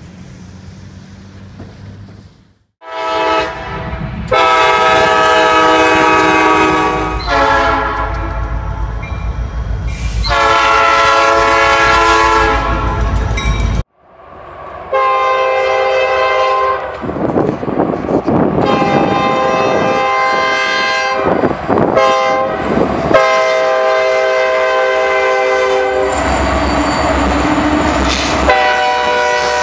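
Freight locomotive air horns blowing a multi-note chord: three long blasts, then after a brief break a longer run of blasts over the rumble and clatter of a passing train. In the later part the horns are on Norfolk Southern diesel locomotives.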